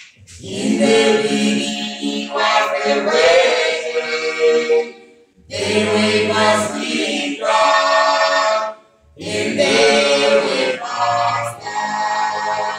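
A small mixed vocal group of two men and two women singing in harmony, unaccompanied. The song comes in three phrases, with short breaths between them about five and nine seconds in.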